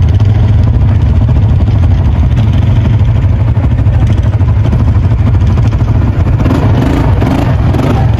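A running vehicle engine: a loud, steady low rumble.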